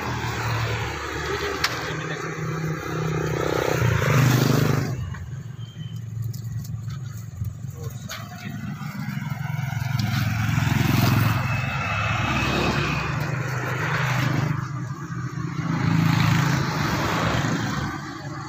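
Road traffic, motorcycles and cars passing one after another over a steady low engine rumble. It swells loudest about 4, 10 and 16 seconds in, each pass rising and fading away.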